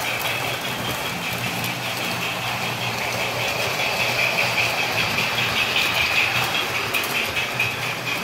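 O-scale model trains running on the layout: a steady electric-motor and gear whine with wheel noise on the track, over a low hum.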